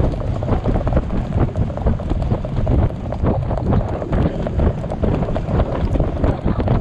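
Heavy wind buffeting the microphone of a rider moving fast, mixed with the dull, irregular hoofbeats of horses on sand.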